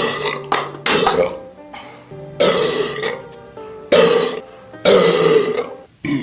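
A person burping loudly five times in quick succession, each burp a rough, drawn-out belch under a second long, with background music underneath.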